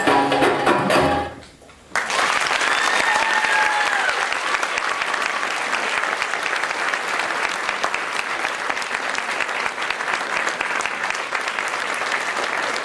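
Belly-dance music with percussion fades out about a second in; after a short lull an audience suddenly breaks into sustained applause, with a high drawn-out cheer over it soon after it starts.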